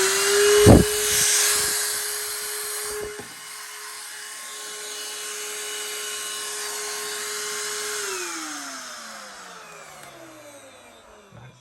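A DN DENNOV cordless handheld vacuum's 100 W motor runs with a steady whine, with a loud rush of air and a couple of knocks in the first three seconds. About eight seconds in it is switched off, and the whine falls in pitch as the motor spins down.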